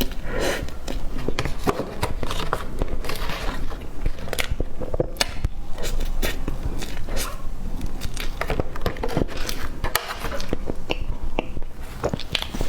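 Close-miked chewing and biting of cake, with many small clicks and crackles.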